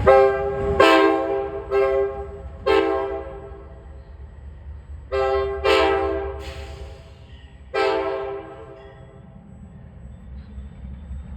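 Nathan K5LA five-chime air horn on an Amtrak train sounded in seven short, light taps ("mouse taps"), in two loose groups. Each tap is a chord that fades out after it.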